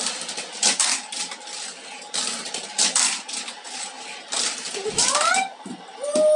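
Hot Wheels toy cars clattering through a plastic wall-mounted track set, in three bursts of rattling clicks.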